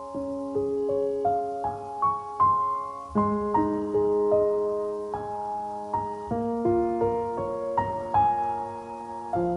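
Soft background piano music: notes struck and left to ring, several at a time, in a slow, gentle melody.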